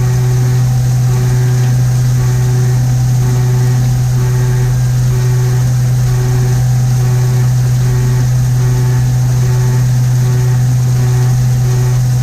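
Haas VF-3 CNC vertical mill running, a loud steady hum with a faint higher tone pulsing about one and a half times a second.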